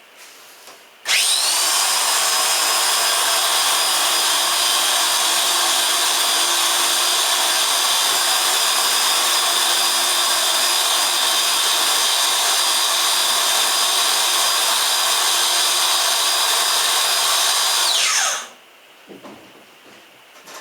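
Electric winch motor running under load as it hauls the homemade elevator carrying a refrigerator up. It starts with a rising high whine about a second in, runs steadily for about seventeen seconds, then winds down and stops near the end.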